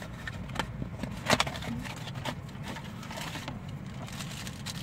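Foil blind-bag pouch being torn open and crinkled by hand: several short, sharp crackles at irregular moments over a steady low hum.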